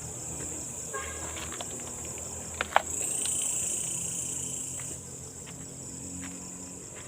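Night insects chirring in a steady, high-pitched chorus, with a few sharp clicks over it, the loudest about two and a half seconds in.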